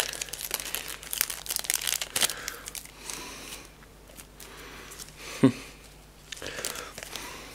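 Plastic packaging crinkling and rustling as it is handled and opened by hand, densest in the first few seconds. There is one short, low thump about five and a half seconds in.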